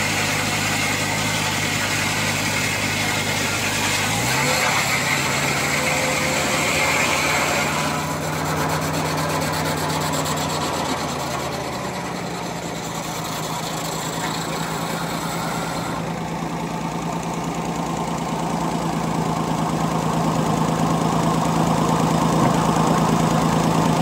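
Gas engine, which sounds like a truck engine, driving a circular sawmill blade through a log, with the hiss of the blade cutting wood. The engine note steps up about four seconds in and again near the middle, and the cutting hiss fades about eight seconds in.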